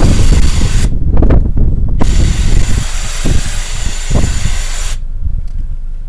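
Cordless power saw running in two bursts, about a second at the start and about three seconds from two seconds in, cutting through a mattress's cover and padding. Wind buffets the microphone throughout.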